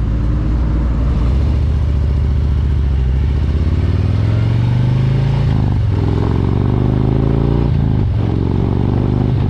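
Harley-Davidson Road Glide's V-twin engine accelerating through the gears: the pitch climbs, drops at an upshift about five and a half seconds in, climbs again, and drops at a second upshift about eight seconds in.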